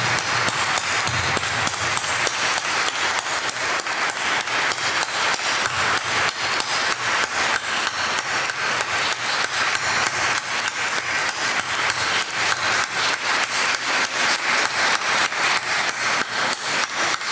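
Audience applauding in a hall, the clapping falling into a steady, even rhythm of about three claps a second.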